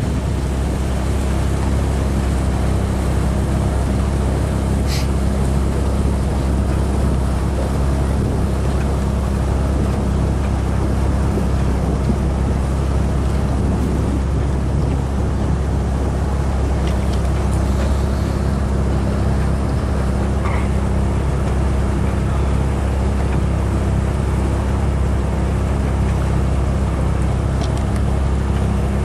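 Pontoon boat's outboard motor running steadily at an even cruising speed, a constant low hum, with a brief click about five seconds in.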